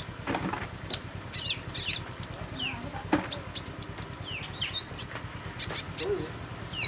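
Songbird calling in quick irregular clusters of high, thin chirps and short down-slurred whistles, over a faint steady low hum.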